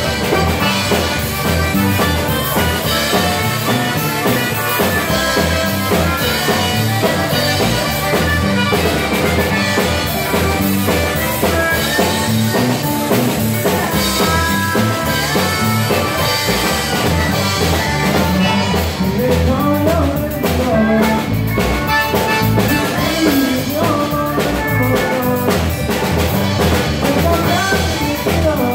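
Live Cajun band playing an instrumental passage: diatonic button accordion leading over acoustic guitar, steel guitar, bass guitar and a drum kit keeping a steady beat.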